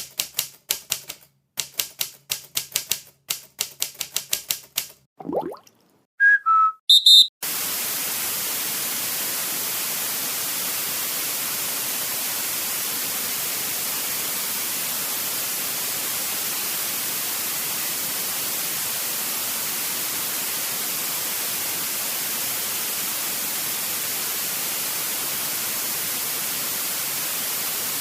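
Rapid clicking like typewriter keys for about five seconds, then a brief falling tone and a few short high beeps. From about seven seconds in, steady static hiss, like white noise, runs on unchanged.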